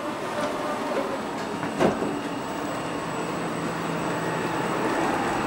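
Stockholm commuter train standing at an underground platform, its electrical and ventilation equipment humming steadily with a thin high whine, and a single knock about two seconds in.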